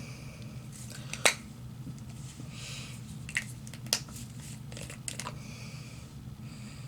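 Handling of a plastic leave-in conditioner spray bottle: a series of sharp clicks and taps, the loudest about a second in, with a few short soft hisses.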